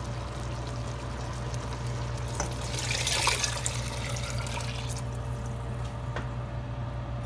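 Water poured from a glass measuring jug into a stainless steel stockpot of sautéed ground pork and shrimp: a splashing pour that swells about three seconds in and lasts about a second and a half. A steady low hum runs underneath, with a few faint clicks.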